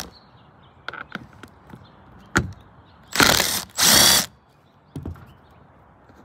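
Drill with a T30 Torx bit backing out roof-rack screws in two short bursts about three seconds in, with light clicks and knocks of the screws and tool being handled between them.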